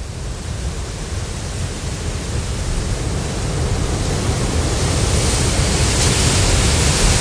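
Storm wind of a hurricane: a steady rushing noise with a heavy low rumble, slowly growing louder.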